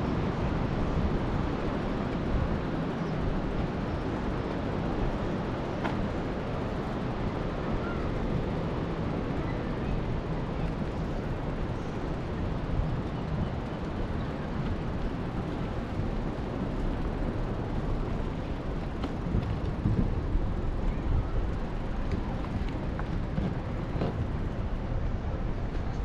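Wind buffeting the camera's microphone as a steady low rumbling noise, over the tyres of a bike rolling along wooden pier planks.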